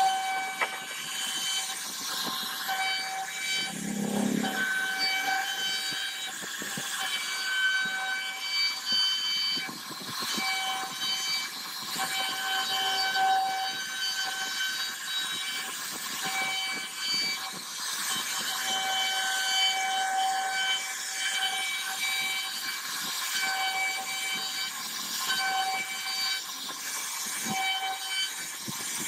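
CNC router spindle whining as the bit carves grooves into a wooden door panel, with a steady hiss of wood being cut. The whine keeps swelling and easing as the cutter moves through the wood.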